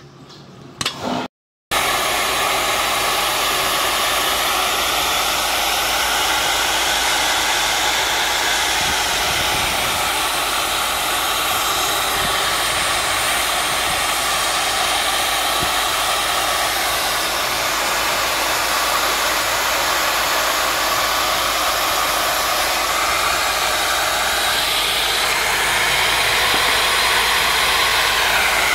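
Electric drill press running with a steady, loud whir while drilling rivet holes in a truck brake lining.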